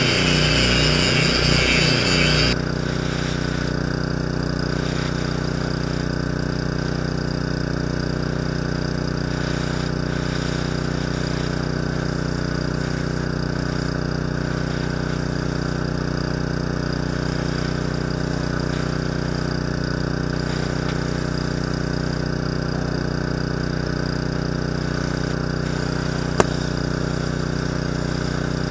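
An engine running steadily at idle, a constant drone. A loud hiss over it in the first two and a half seconds stops abruptly, and there is one sharp click near the end.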